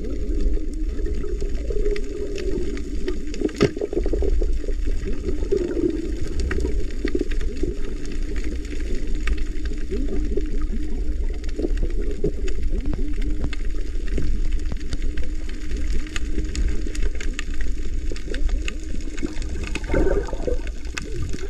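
Underwater sound heard through a camera housing while diving: a steady, muffled low rumble of moving water, with many scattered faint clicks and crackles throughout.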